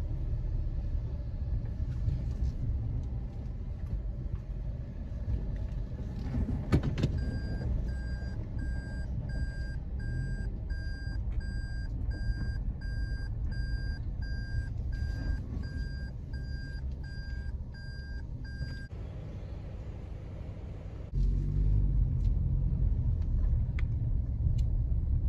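A car's engine and road rumble heard from inside the vehicle, with a reverse warning beeping at an even pace for about ten seconds after a click about seven seconds in, as the car backs up. The beeping stops, and near the end the rumble grows louder as the car moves off.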